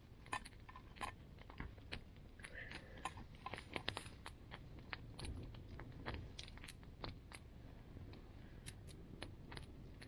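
Small campfire of dry sticks crackling, with irregular sharp snaps and pops, busiest in the first four seconds and sparser after, over a faint low rumble.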